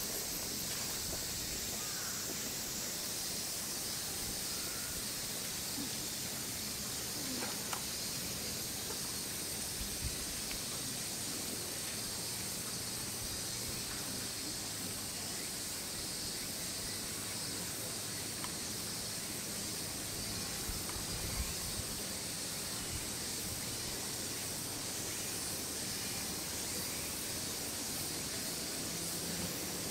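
Steady high-pitched outdoor hiss with no clear single source, and a few faint soft knocks.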